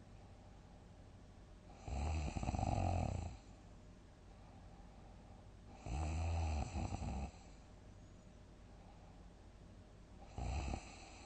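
A sleeping person snoring loudly: three rattling snores about four seconds apart, the first two lasting about a second and a half each, the last one short.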